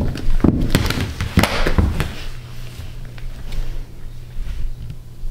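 Small rubber basketball bouncing on a hardwood floor: a few sharp thuds in the first two seconds, then quieter with a low steady hum underneath.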